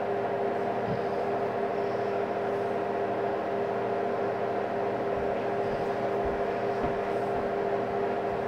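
A steady machine hum with a couple of constant tones, from an appliance or motor running in the room, with a few faint low bumps in the second half.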